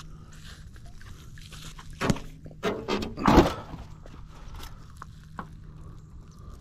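Rusted sheet-metal panels stuck to a fishing magnet knock and thunk onto a concrete bridge parapet as they are hauled out of the water. There are a few knocks between about two and three and a half seconds in, the last the loudest.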